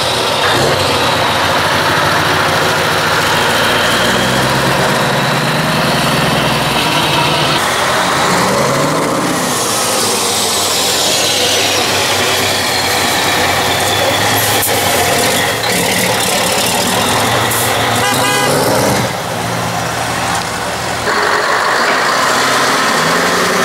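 Heavy truck V8 diesel engines, a Mercedes and a Scania 164L 580, running loud through open exhaust pipes, idling and being revved. Partway through one engine's revs rise and fall, followed by a long falling whine.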